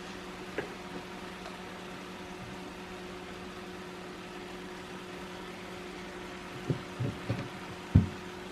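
Kitchen background with a steady hum, and a few soft knocks of a utensil against a pot of wilting spinach: two light ones early, then four near the end, the last the loudest.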